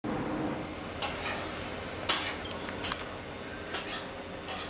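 Several short, sharp clinks or taps at irregular intervals over steady background noise.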